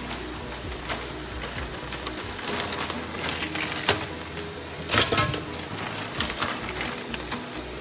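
Tap water running from a kitchen faucet into a large aluminium stockpot of snow crab legs in the sink, a steady splashing hiss. There are a few knocks around four and five seconds in.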